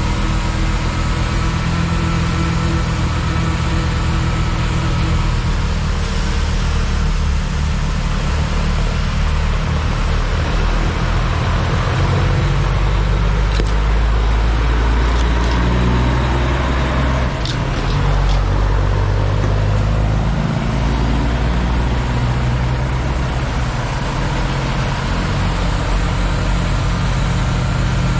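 Heavy diesel engines of a loader-mounted snowblower and dump trucks running steadily. The low engine rumble swells about halfway through as a tractor-trailer dump truck drives past close by.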